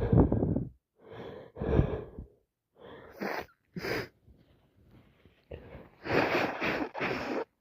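A woman sneezing repeatedly, with sharp gasping breaths between, in several separate bursts; the longest and one of the loudest comes near the end. She is building up to and letting out sneezes she thinks come from a cold rather than allergies.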